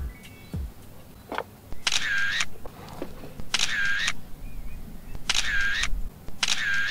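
Smartphone camera shutter sound, four times over about five seconds, with a fainter single click about a second in.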